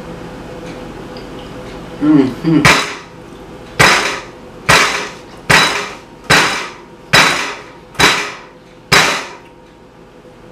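A fist pounding a glass tabletop eight times in a steady rhythm, a little under one bang a second, each bang ringing briefly. Just before the first bang comes a short hummed "mm-mm" of enjoyment.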